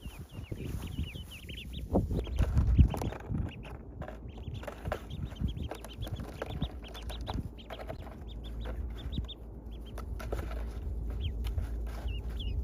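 Duckling peeping: a rapid series of short high chirps repeating over and over, with low thumps and rustling underneath, loudest about two to three seconds in.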